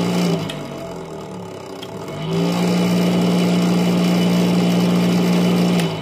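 Small 12 V DC motor spinning a circular saw blade on its shaft with no load: a steady motor hum and whine. It is softer for the first two seconds, louder from about two seconds in, and drops back just before the end.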